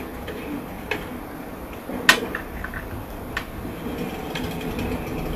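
A few sharp clicks and taps, the loudest about two seconds in, over a steady low background noise.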